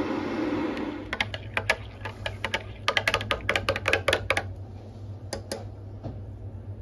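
Metal teaspoon stirring instant latte macchiato in a ceramic mug, clinking rapidly against the sides for a few seconds, with two more clinks a moment later. A brief rushing sound comes just before the clinking begins.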